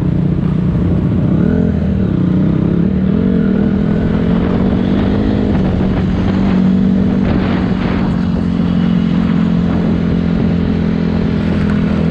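Racing vehicle's engine running at fairly steady revs, its pitch wavering slightly up and down.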